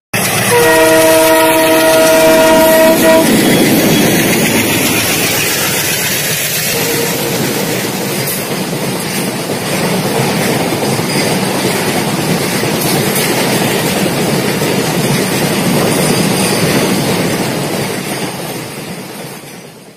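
A train horn blows for about three seconds, followed by the steady rumble and wheel clatter of a passing train that fades out near the end.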